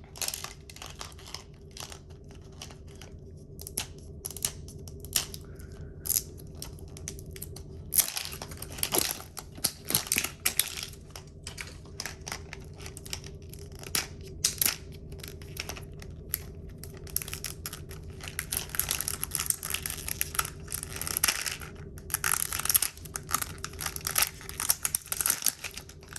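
Plastic packaging of a Mini Brands toy capsule crinkling and tearing as it is handled and unwrapped, in irregular bursts of sharp crackles that grow busier in the second half.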